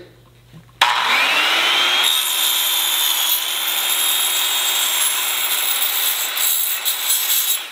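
A corded DeWalt circular saw with a Diablo Steel Demon cermet-tipped steel-cutting blade starts about a second in, its whine rising as it spins up. It then runs steadily, cutting a thin 1/16-inch steel snow-fence post with a hissing, grinding noise, and stops near the end.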